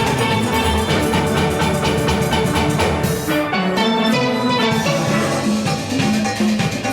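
A large steel orchestra playing live: many steel pans struck in fast, busy runs over a driving drum beat.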